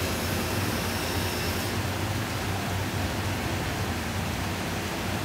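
Bandsaw running: a steady rushing noise with a low hum underneath, as a small wooden block is fed through the blade.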